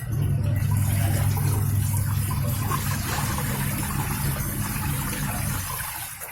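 Vise 8.5 kg washing machine's wash motor and newly replaced gearbox running, a steady hum with water churning in the tub. It starts suddenly and cuts off after about five and a half seconds: one agitation stroke of the wash, now working properly.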